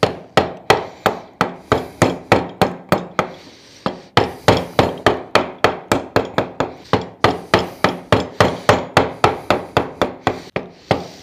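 Wooden chisel handle being struck again and again with a mallet, driving the chisel into a pine board to chop away waste wood, about three sharp knocks a second. There is a short pause a little over three seconds in, then the strikes resume.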